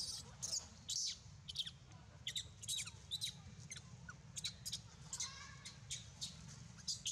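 A rapid series of short, high-pitched chirping calls, many sliding downward in pitch, about two a second, over a steady low rumble.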